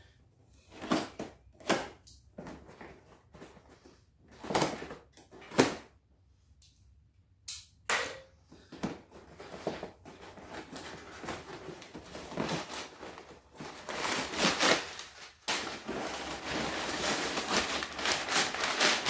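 A package being opened by hand: several short tearing and ripping sounds, then continuous rustling and crinkling of the packaging that grows louder toward the end.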